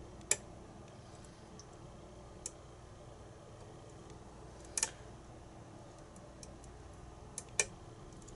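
Sharp, sparse metallic clicks from a pin tumbler lock being single-pin picked: the pick working the pins under tension. There is a single click just after the start, a fainter one about two and a half seconds in, a quick double click near the middle, and two more near the end.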